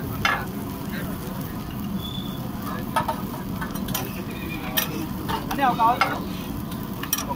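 Onion dosa batter and flatbreads sizzling on a hot flat griddle, with sharp clicks and scrapes of a metal spatula on the plate every second or so.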